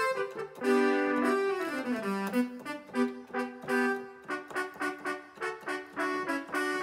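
Roland XP-10 synthesizer played with a trumpet-like brass patch. Held notes bend downward in pitch about two seconds in, then a run of short detached notes follows from about four seconds in.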